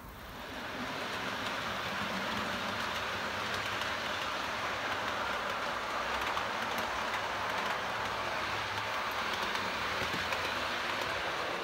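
OO gauge model train running along the layout's track, a steady rolling noise of its wheels on the rails that fades in during the first second.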